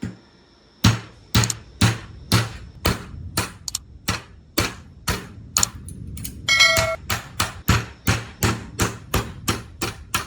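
A steady series of sharp strikes, about two a second, with a brief ringing tone partway through.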